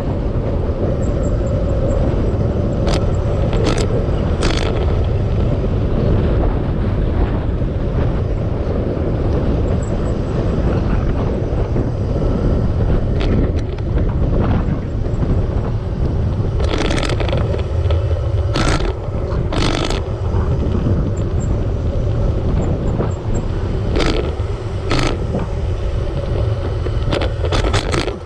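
Steady wind and road noise on the microphone of a camera riding along on a bicycle, with several sharp clicks scattered through.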